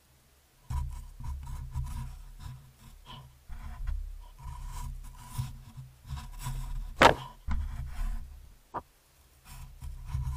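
A doe deer's head and fur rubbing and scraping against a trail camera right at its microphone, in irregular bouts, with one sharp knock against the housing about seven seconds in.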